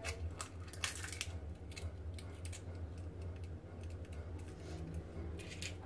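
Eggs being broken open by hand into a small dish: eggshells clicking and crackling in a scatter of small sharp clicks, thickest about a second in and again near the end, over a steady low hum.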